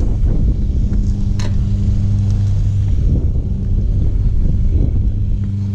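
Steady low electric hum of a bass boat's bow-mounted trolling motor running, over a low rumble. A single sharp click about a second and a half in.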